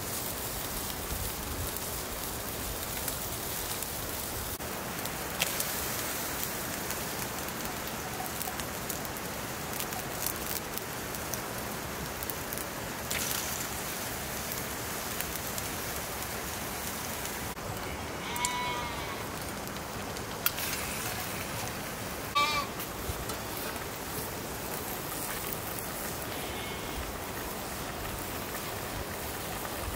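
Vegetables sizzling in an iron wok over a wood fire: a steady hiss with small crackles. An animal bleats twice, a few seconds apart, past the middle.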